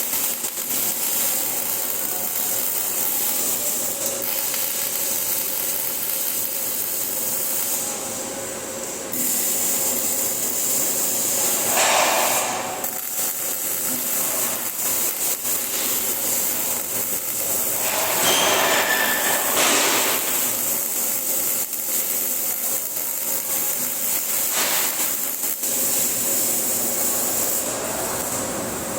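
MIG welding arc crackling steadily, with louder swells about twelve seconds in and again near twenty seconds.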